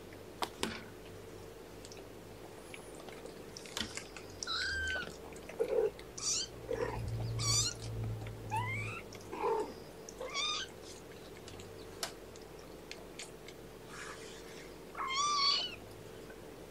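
Three-week-old kittens mewing: short, high-pitched mews in bouts from about four seconds in, with another bout near the end.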